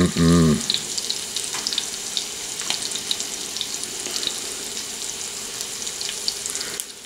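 Flour-dredged pack rat pieces frying in bacon grease in a cast-iron skillet: a steady sizzle with many scattered crackling pops.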